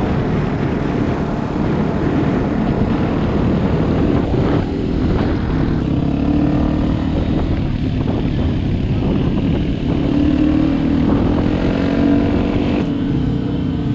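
Small dual-sport motorcycle engine running at road speed, its note rising under throttle about six seconds in and again about ten seconds in, under heavy wind rumble on the bike-mounted camera's microphone.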